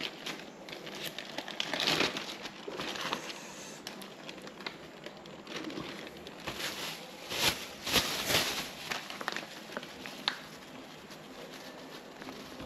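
Irregular crinkling and rustling of plastic packaging, with a few short knocks, as fish is handled and coated in flour. The loudest rustles come about two seconds in and again around seven to eight seconds in.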